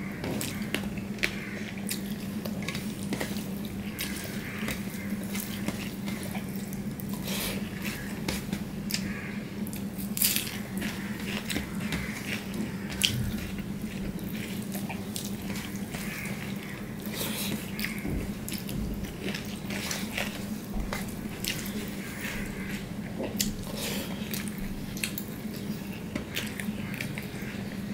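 Wet, sticky squelching of fingers kneading rice with taro-leaf curry on a steel plate, with many irregular small clicks of fingers against the plate, over a steady low hum.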